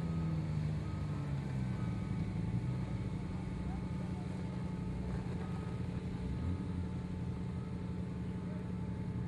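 Off-road race buggy's engine running steadily at low revs under load as the buggy crawls and pivots on a steep dirt slope.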